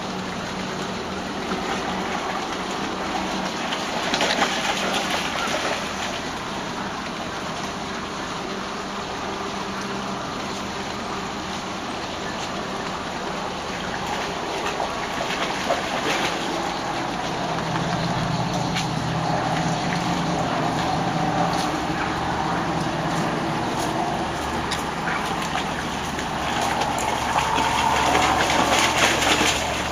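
Flood irrigation water gushing and running steadily across the yard, with dogs splashing as they wade through it. A faint low hum runs underneath in parts.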